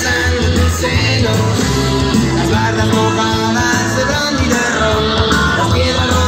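Loud rock and roll song playing over a dance-hall sound system, with a singing voice, guitar and a strong steady bass.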